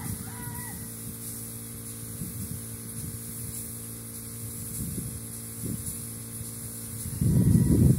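Spray gun hissing as it sprays sanding sealer, over a steady motor hum. A louder low rumble comes near the end.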